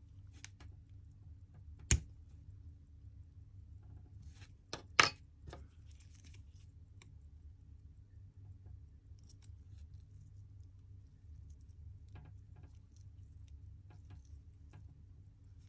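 Small metallic clicks and taps of watchmaker's tweezers working inside the open case of a 1970s Certina DS-2 wristwatch, with two sharp clicks about two and five seconds in, over a low steady hum.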